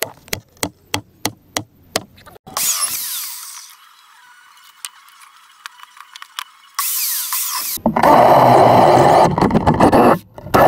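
Woodworking sounds: a quick run of sharp knocks, about three a second, then short bursts of power-tool noise, the loudest lasting about three seconds near the end.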